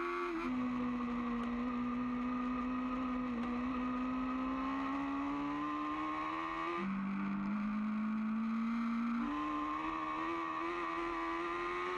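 Onboard sound of a Kawasaki ZX-10 superbike's inline-four engine at race pace, running at high revs with wind rush. The engine note climbs slowly and drops sharply about half a second in and again near 7 s, then jumps up near 9 s.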